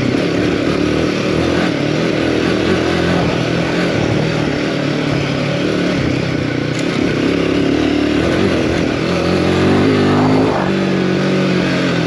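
Royal Enfield Himalayan 450's single-cylinder engine running under way, its revs rising and falling with the throttle and climbing about ten seconds in.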